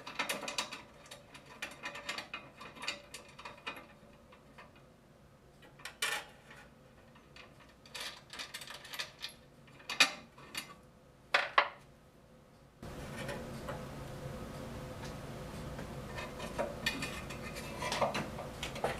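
Metal clicks and knocks from hands working on a band saw's metal table: a quick run of small clicks in the first few seconds, then scattered sharper knocks. A steady background hiss comes in abruptly about two-thirds of the way through.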